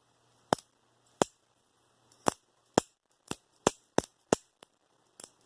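Benchmade Bugout folding knife clicking about ten times at uneven spacing, roughly two a second: the AXIS lock snapping as the blade is flicked open and shut over and over.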